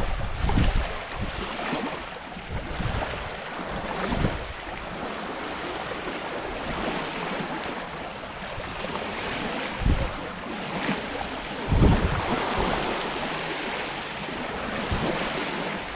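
Small waves washing on a rocky Lake Superior shore, a steady hiss of surf. Wind gusts buffet the microphone with several low thumps, the strongest about ten and twelve seconds in.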